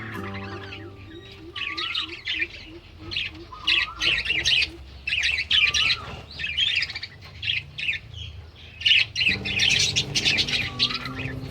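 Budgerigars chattering: a dense, rapid run of short chirps, squawks and warbles from several birds.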